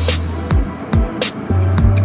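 Hip-hop backing music with a heavy beat: deep bass kicks that drop in pitch about twice a second over a held bass note, with sharp snare-like hits on top.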